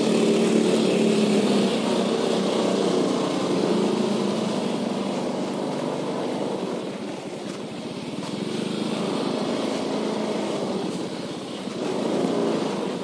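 Motor scooter engine running at low speed. Its note is clear at first, eases off through the middle and picks up again near the end.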